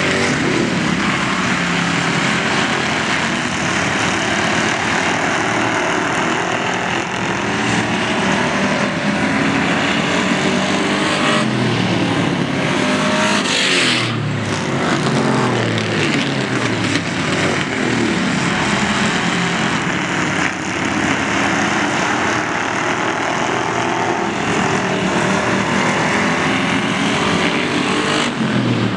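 Several Ford Crown Victoria race cars' V8 engines running hard together, their pitch rising and falling as they accelerate and pass. About halfway through, one car goes by close and louder.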